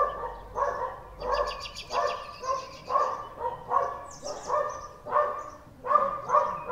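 A dog barking over and over in a steady rhythm, about two barks a second.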